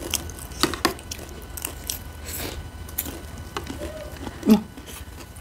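Eating at a table: metal spoons clicking against bowls, with chewing. A brief voice sound comes about four and a half seconds in.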